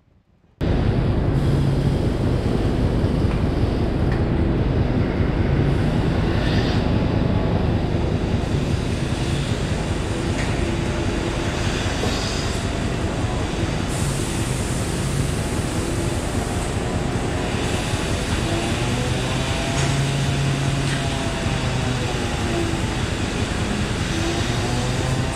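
Milking parlor equipment running: a loud, steady machine noise from the milking system's vacuum pump and milker units, with low hums and some wavering tones that come and go. It starts suddenly about half a second in.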